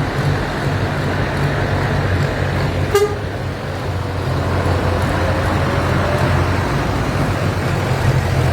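Tractor engines running steadily, with a short sharp sound about three seconds in.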